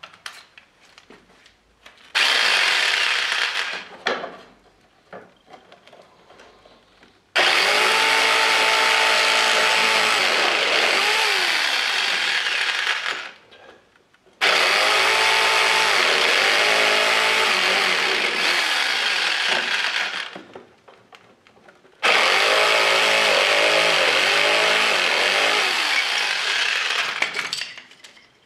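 Handheld electric jigsaw motor running in four bursts of two to six seconds each. Its whine rises in pitch as each burst starts and falls away as the motor spins down.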